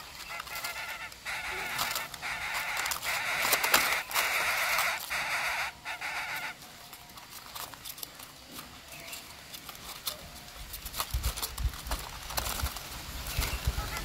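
Coucal nestlings giving a series of harsh, rasping begging calls for about six seconds, while one chick struggles to swallow its food. After that it goes quieter, with small rustles and a few low thumps near the end.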